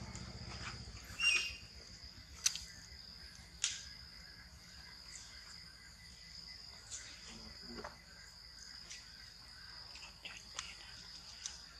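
Steady high-pitched drone of insects, typical of crickets or cicadas. About a second in there is a short squeaky chirp, and a few sharp clicks or taps come after it.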